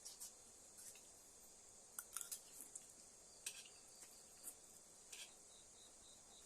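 Steady high chirring of night insects, with scattered light clinks and scrapes of a spoon on a dish, clustered about two seconds in and again near three and a half and five seconds.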